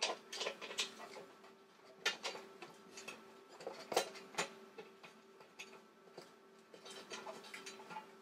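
Plastic motor cover of a Tiger 8/25 Turbo air compressor being fitted back on by hand: scattered sharp clicks and knocks, loudest near the start and at about two and four seconds in, with a faint steady hum beneath.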